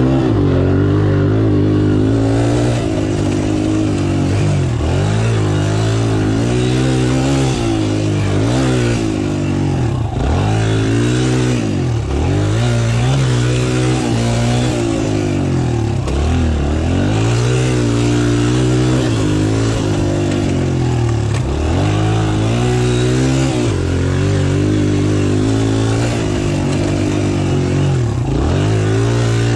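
Dirt bike engine heard from on board, revving up and easing off over and over as the throttle is opened and closed, its pitch dropping and climbing again every couple of seconds.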